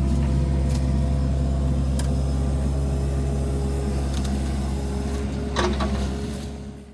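An engine running steadily with a low hum, with a few light clicks and knocks over it. The sound fades out near the end.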